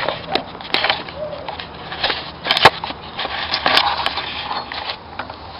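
Wrenches clicking and scraping on the accessory-belt tensioner nut of a Volkswagen Pointer engine as it is worked loose: several sharp clicks about a second apart, with rubbing and rattling between them.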